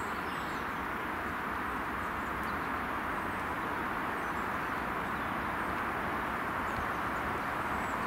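Steady outdoor hiss of background noise at an even level, with a few faint high chirps.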